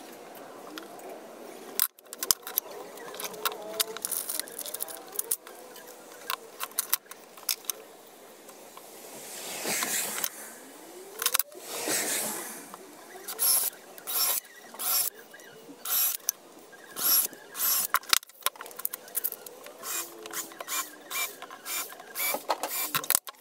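Cordless drill running in short repeated bursts into a wooden board, with one rising whine as it spins up about halfway through. Sharp wooden knocks and clatter of boards being handled on a workbench run throughout.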